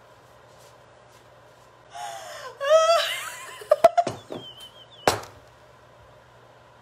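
A woman laughing hard: a high, wavering burst of laughter starting about two seconds in and lasting about three seconds, broken by gasps. A few sharp knocks sound near the end of it.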